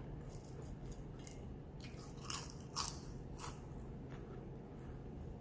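A person chewing crunchy food close to the microphone: irregular crisp crunches and mouth clicks, the loudest a pair a little past the middle.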